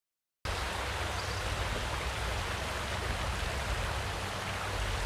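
Creek water running over rocks: a steady rushing that starts abruptly about half a second in.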